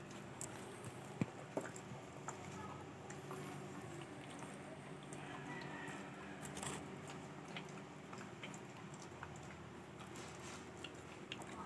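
A dachshund gnawing and chewing a hard dental chew stick, with scattered small crunching clicks, over a low steady hum.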